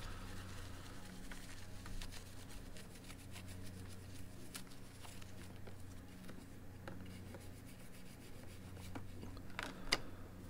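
Faint rubbing and handling sounds from hands cleaning plastic radio parts, with scattered light clicks and two sharper clicks near the end, over a steady low hum.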